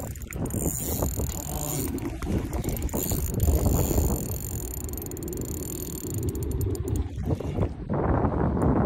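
Ultralight fishing reel working against a hooked grass carp: its drag and gears click and whir, with a quick run of fine ticks about six seconds in.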